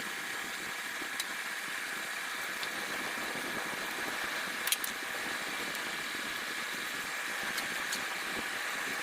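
Electric blower feeding air into a burning coal forge fire: a steady rushing hiss with a faint high whine, broken by a few sharp pops from the fire, the loudest about five seconds in.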